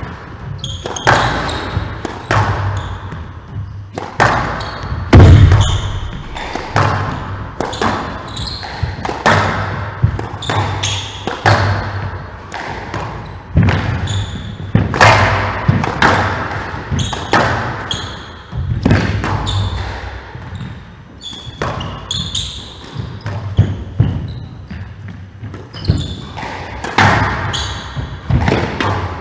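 A squash rally: the ball is struck by the rackets and cracks off the walls about once a second, each hit echoing in the glass-walled court. Short squeaks from shoes on the wooden floor come in between the hits.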